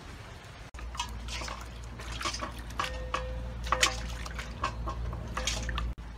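Water splashing and dripping as a wooden chopping board is rubbed and rinsed by hand in a steel bowl of water, in quick irregular splashes.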